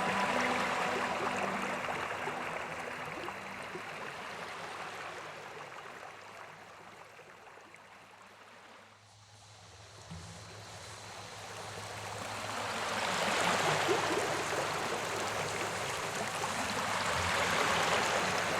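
Rushing water of a waterfall, an even hiss of falling water that fades away to near quiet about halfway through, then a second stretch of falling water fades in and grows louder.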